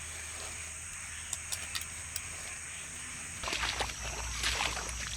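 Night outdoor ambience with a steady high drone and a few faint ticks. About three and a half seconds in, louder irregular rustling and squelching footsteps start, as of walking through wet, waterlogged ground.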